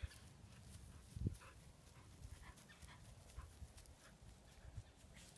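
Faint, irregular rustling and footfalls in tall dry grass, with a low thump about a second in.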